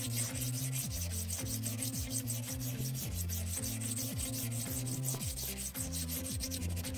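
Diamond-coated needle file rasping along a ceramic honing rod in quick, repeated short strokes, scraping off the glazed, worn-smooth top layer so the rod will hone again. Faint background music runs underneath.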